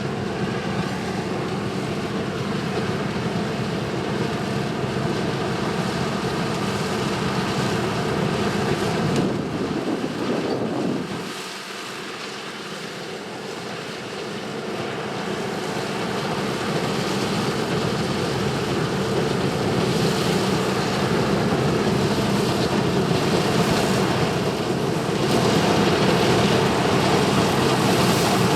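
1982 John Deere 4420 combine running in a soybean field, its six-cylinder diesel engine and threshing machinery droning steadily under load. The sound drops off about eleven seconds in, then builds back up and is loudest near the end.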